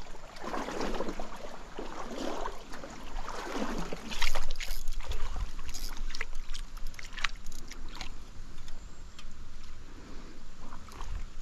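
Stream water sloshing and splashing around a wading angler, with several sharp clicks and knocks from about four seconds in, the loudest near four seconds, over a steady low rumble.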